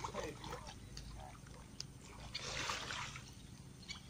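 Water sloshing and splashing as people wade waist-deep through a muddy pond, with a louder splash about two and a half seconds in.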